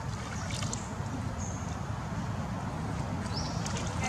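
Water sloshing and dripping in a plastic basin as a baby pigtail macaque is dipped and washed, over a steady low rumble, with a few brief high chirps.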